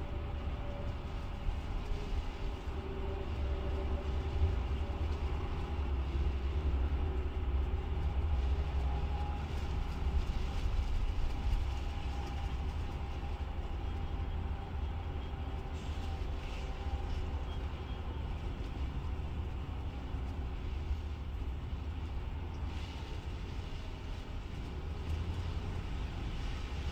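Nova Bus running, heard from inside the cabin: a steady low rumble with faint tones that drift slightly in pitch.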